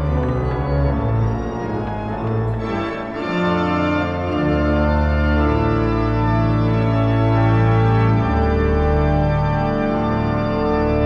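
Background organ music: slow, sustained chords that change every second or two.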